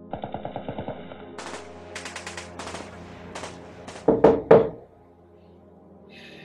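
Automatic gunfire: a rapid burst in the first second, then scattered shots and short bursts, and about four seconds in three much louder blasts. Then it dies away, leaving a low steady drone underneath.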